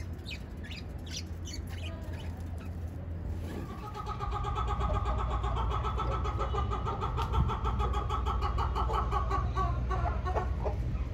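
Caged birds calling: short high chirps in the first few seconds, then from about four seconds in a long buzzing call held at one pitch, which stops shortly before the end, over a steady low hum.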